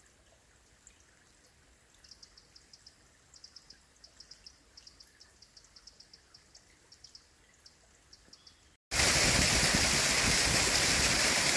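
Faint outdoor quiet with a bird's quick, repeated high chirps. About nine seconds in, a loud, steady rush of a hill burn in spate pouring down a small waterfall takes over.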